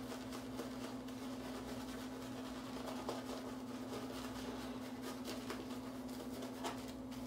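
Synthetic shaving brush swishing over a lathered face, a soft, scratchy brushing, over a steady low hum.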